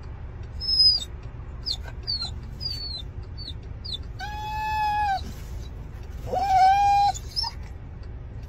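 Australian cattle dog (blue heeler) whining in a run of short, high, falling squeaks, then giving two longer howls of steady pitch, about four and six seconds in. A low steady rumble of the car runs underneath.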